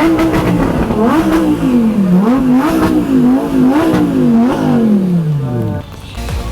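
Car engine revving, its pitch swinging up and down several times, then falling away in one long drop near the end.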